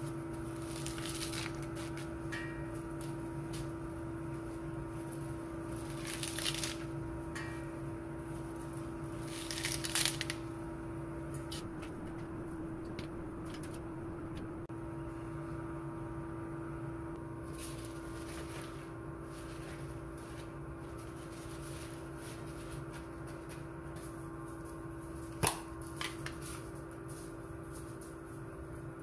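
Fresh spinach being picked over by hand, with a few sharp snaps and rustles of stems and leaves, over a steady hum in the background.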